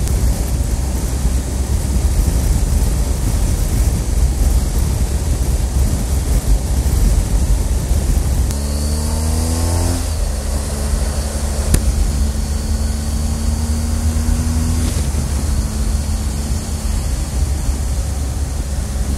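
Heavy wind rush on the microphone of a motorcycle at highway speed, over the BMW R 1250 GSA's boxer-twin engine. A little past the middle the engine note rises as the bike accelerates, then holds at a steady pitch.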